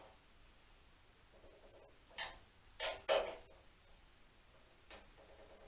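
Three or four short scraping clicks from the aluminium racing filler cap being handled and turned on a motorcycle fuel tank, the clearest a little past two and three seconds in.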